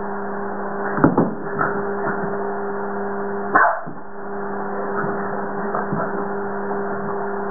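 A steady electrical hum, with a few short scuffs and knocks as a French bulldog scrambles about on a bath towel over a wooden floor. The loudest knocks come about a second in and again at about three and a half seconds.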